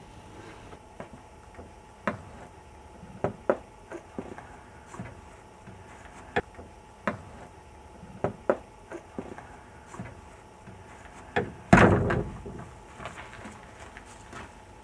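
Scattered light taps and clicks, then a door shutting with one loud bang near the end.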